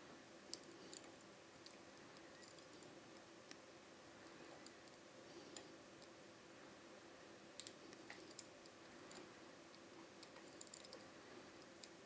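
Faint, irregular metallic clicks and ticks of a hook pick and tension wrench working the special-shaped pin stack of a Dom IX-6 KG euro cylinder during lock picking.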